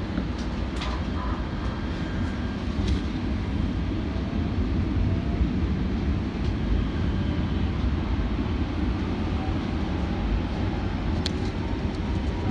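Kinkisharyo P3010 light rail vehicle running along the track, heard from inside the car: a steady low rumble of wheels and running gear, with a few sharp clicks.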